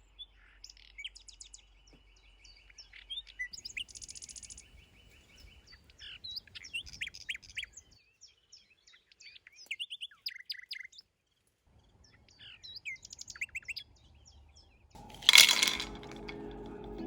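Songbirds singing outdoors: scattered chirps and a steady trill, with a pause in the middle. About fifteen seconds in, a sudden loud burst of noise cuts in and music starts.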